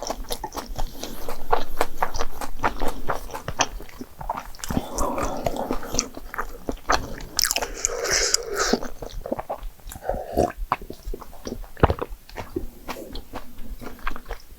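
Close-miked eating: a person biting and chewing food, with many small crisp clicks from the mouth and a few longer, louder wet stretches.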